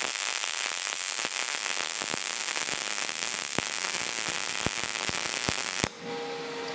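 MIG welding arc from an HTP Pro Pulse 200 running .030 wire, hissing steadily with frequent sharp crackles and pops as a bead is laid. The arc cuts off suddenly about six seconds in, leaving a quieter steady hum.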